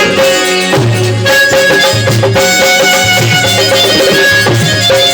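Loud Indian devotional folk music: pitched instruments over a steady beat, with low bass notes held in blocks of about half a second to a second.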